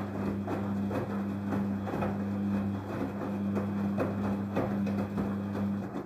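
Daewoo DWD-FT1013 front-loading washing machine running with its drum turning a wet load: a steady motor hum with soft knocks from the tumbling laundry about two to three times a second.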